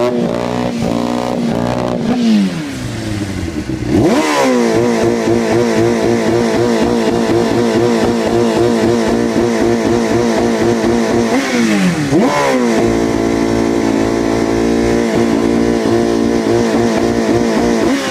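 Honda CBR600RR inline-four engine revved in sharp blips and held at raised revs, its speed wavering unsteadily: the bike is stuttering, a loss of power at high revs that the owner first blamed on a bad fuel pump and traced to a warped throttle cable. The revs climb sharply twice, about four and twelve seconds in, and drop back a few times.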